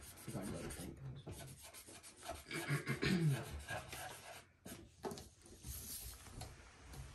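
A marker scratching and rubbing across a sheet of paper on a hard tabletop in many short strokes as a signature is written.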